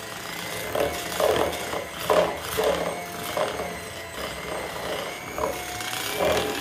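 Handheld electric mixer running on low speed, beating buttercream as pink gel food colouring is mixed in, with a faint steady motor whine. The beaters knock and scrape irregularly against the bowl.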